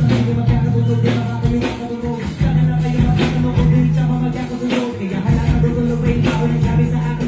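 Hip-hop song performed live through a concert sound system: a deep bass line in long held notes over a steady drum beat, with a rapper's voice on top. The bass drops out briefly about two seconds in, then comes back.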